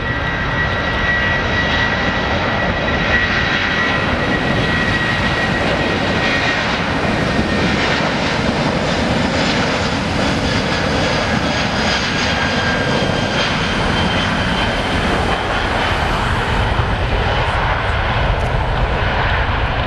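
Airbus A330 twin jet engines running at high power as the airliner rolls fast down a wet runway: a steady, loud jet rush with a high whine that fades after the first few seconds.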